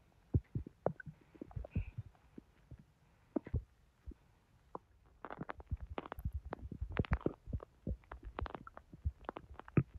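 Bowel sounds from a bloated, overfull belly: quick gurgles and pops of the intestines moving food and gas along during digestion. They are scattered at first and come thick and fast from about halfway through.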